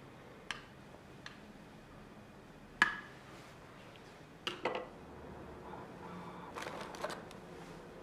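Metal offset spatula clinking against a ceramic dish and a glass mixing bowl: a handful of sharp clinks, the loudest and most ringing about three seconds in, with small clusters past the middle and near the end.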